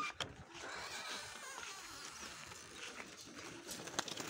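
Quiet outdoor ambience: faint, distant bird chirps over a low rustle of footsteps and handling as someone walks with the camera, with a single sharp click near the end.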